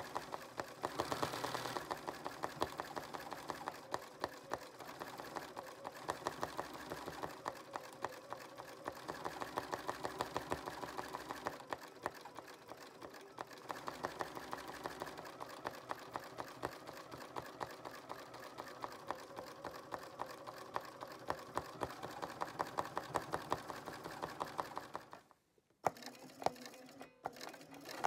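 Bernina 590 sewing machine stitching at speed in free-motion embroidery, a fast, even run of needle strokes. It stops briefly near the end, then starts again.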